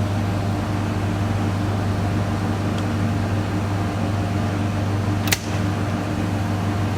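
Steady low electrical hum of the switchgear and ATS panel, with a single sharp click about five seconds in.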